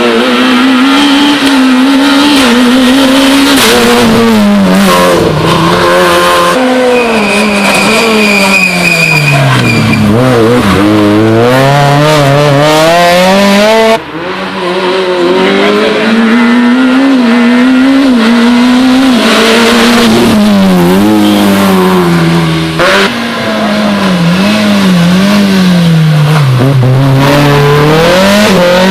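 Rally cars at racing speed, engines revving high and dropping through gear changes and braking, in several short cuts from one car to the next. A steady high whine sounds for about three seconds, around seven seconds in.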